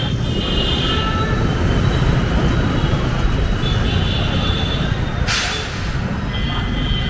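Steady low rumble of traffic on a busy city road, with thin high squealing tones coming and going and a brief hiss about five seconds in.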